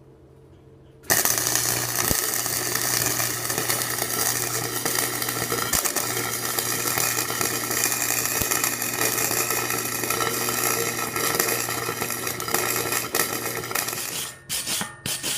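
Flux-core wire-feed welder arc crackling steadily as a gap in a pipe joint is filled with weld. It starts suddenly about a second in, runs unbroken for about thirteen seconds, then breaks into several short stop-start bursts near the end.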